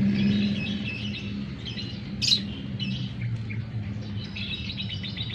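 Lovebird chirping in a continuous run of short, high chirps, with one louder chirp about two seconds in, over a steady low hum.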